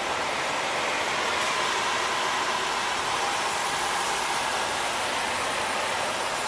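Steady noise inside a semi truck's cab as the truck rolls slowly through a parking lot, an even hiss with little rumble.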